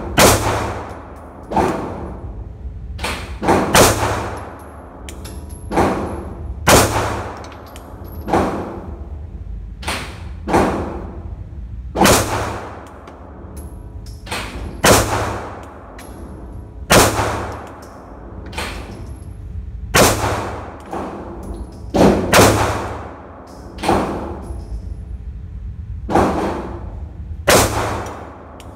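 Glock G43X 9mm pistol fired shot after shot, about a dozen and a half shots spaced one to two seconds apart. Each shot rings on in the echo of a concrete indoor range.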